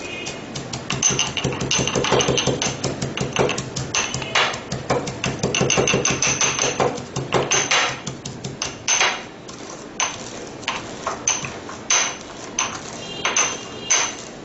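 Whole coriander seeds being pounded coarsely with a pestle in a mortar: rapid knocking strikes for about the first eight seconds, then slower, evenly spaced strikes.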